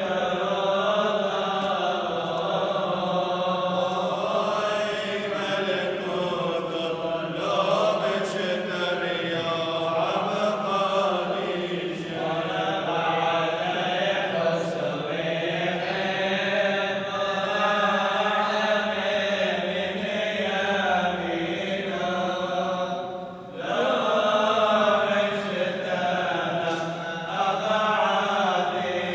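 Orthodox clergy chanting the funeral liturgy, a slow, continuous melodic chant in men's voices that breaks off briefly about 23 seconds in and then resumes.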